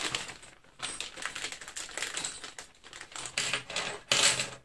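Thin clear plastic bag being opened and handled: irregular crinkling and rustling with small clicks, loudest about four seconds in.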